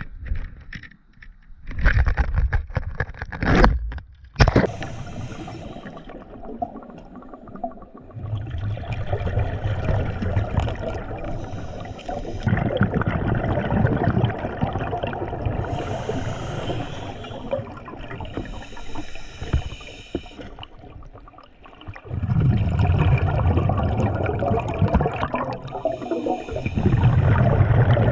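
Water gurgling and bubbling in long surges, with a few sharp knocks and scrapes in the first five seconds.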